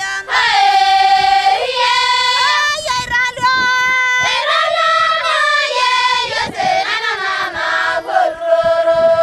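A group of high voices singing together in long held notes that step from pitch to pitch.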